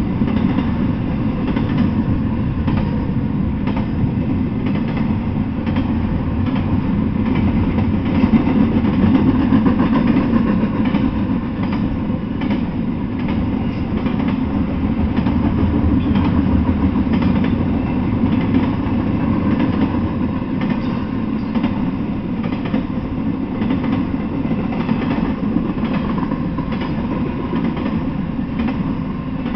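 Double-stack container freight train rolling past: a steady noise of steel wheels on rail, with faint irregular clicks from the wheels.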